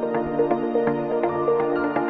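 Instrumental background music: a gentle melody of quick, struck notes over held tones.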